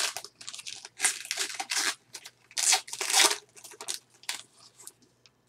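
Plastic wrapper of a baseball card pack being torn open and crinkled, in a series of short crackling rips, loudest about a second in and again around three seconds in.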